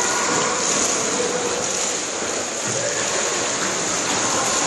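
Children swimming with their heads out of the water, their kicks and arm strokes making a steady churning splash.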